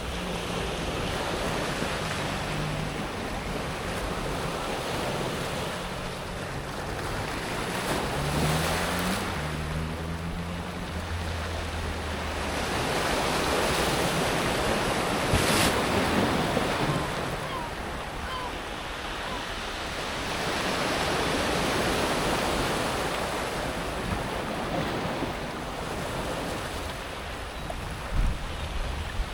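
Sea waves rolling onto a pebble beach, the surf swelling and fading in surges several seconds apart as water washes over the stones.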